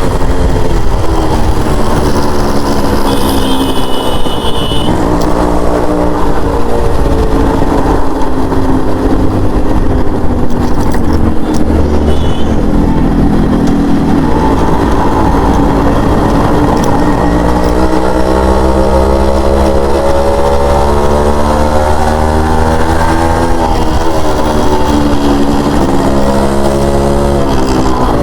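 Yamaha RX100's 98cc two-stroke single-cylinder engine, heard through its exhaust while riding. The engine pitch repeatedly climbs and drops with throttle and gear changes. A couple of brief high-pitched horn-like tones sound near the start and again about 12 seconds in.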